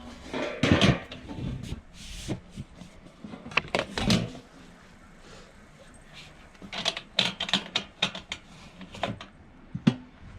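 Irregular clicks and clattering knocks, in bunches of quick strikes about a second in, around four seconds in, and again near the end.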